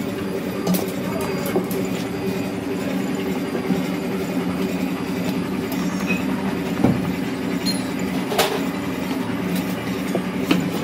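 Workshop machinery running with a steady hum, with a few sharp metal knocks scattered through it.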